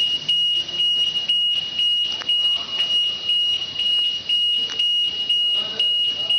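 High-pitched electronic alarm beeping: one steady shrill tone broken by short gaps about twice a second.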